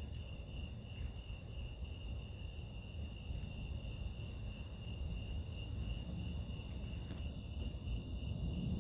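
Crickets chirping steadily in the night, over a constant low rumble.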